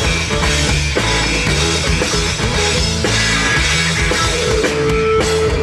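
Live rock band playing: electric guitars over a drum kit, with the drum hits falling about twice a second.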